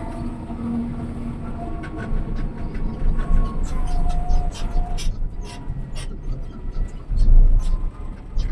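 XCMG LW500HV wheel loader's diesel engine running with a steady low rumble, and from about two seconds in a string of sharp knocks and clanks; the engine swells louder briefly near the end.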